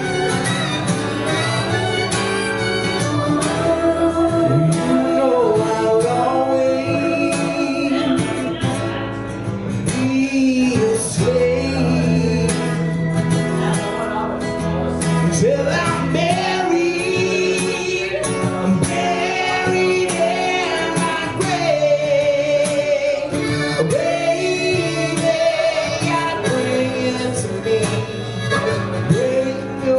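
Acoustic guitar strumming with a harmonica played over it, its long held notes bending up and down in pitch.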